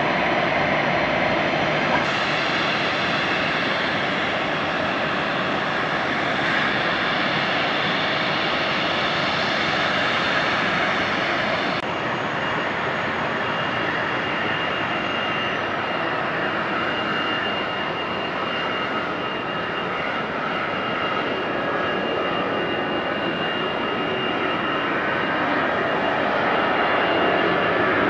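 Jet airliner engines at high takeoff power, a steady dense noise. About twelve seconds in it cuts to an AirAsia Airbus A320 on its takeoff roll, with a steady high whine over the engine noise. The noise grows a little louder near the end as the aircraft climbs out.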